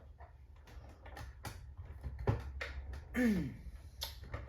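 Clicks and knocks from handling and pulling on the latch of a Kirby upright vacuum's bag compartment, which is stuck hard shut. About three seconds in there is a short sound falling in pitch.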